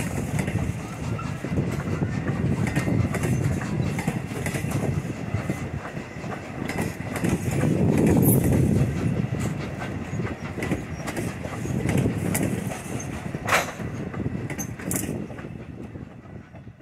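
Railroad passenger coaches rolling past close by: a steady rumble of steel wheels on the rails with repeated clicks as the wheels cross rail joints. There is one sharper metallic click about 13 seconds in, and the sound fades away near the end.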